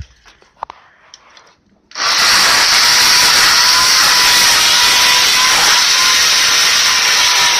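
A few faint clicks and knocks, then about two seconds in a chainsaw starts suddenly and runs loud and steady without revving up or down.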